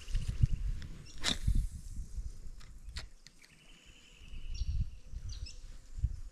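Uneven low rumbling of wind and handling noise on the microphone, with a sharp swish about a second in and a click about three seconds in. A short, rapid high trill runs between them.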